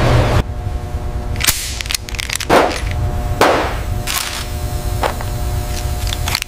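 Chrome oyster-opening pliers handled over a stainless-steel worktable: a handful of sharp metallic clicks and snaps a second or so apart, with a quick cluster near the end, over a steady hum. A loud rumbling noise cuts off about half a second in.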